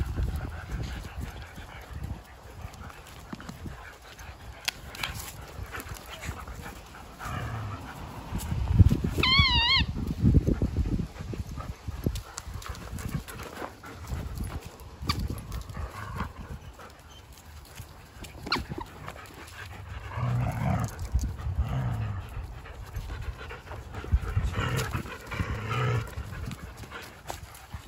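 Shepsky puppies playing: one gives a high, wavering whine about nine seconds in, and there are more short vocal noises later on, over scuffling and panting.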